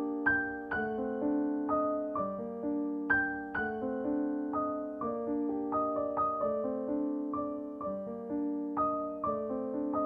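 Background piano music: single notes and chords struck about twice a second, each ringing out and fading.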